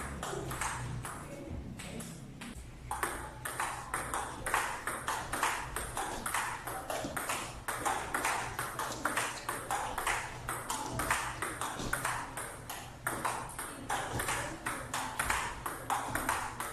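Table tennis rally: a plastic ping-pong ball clicking off paddles and bouncing on the table, several quick clicks a second.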